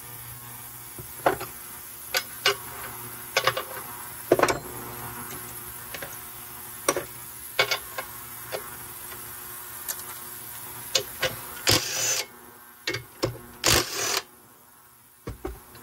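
Scattered clicks and knocks of hand work on the saw's small metal and plastic parts, over a steady low hum that drops away near the end. Two short rushing hisses come about twelve and fourteen seconds in.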